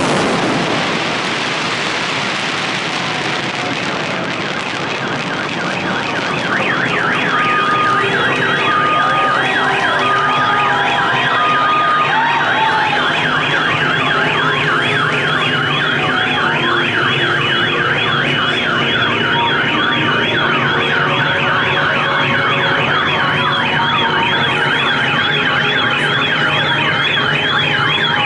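The crackle of the fireworks finale dies away at the start; from about six seconds in, several car alarms sound together, warbling up and down in looping siren tones, with a few short beeps among them.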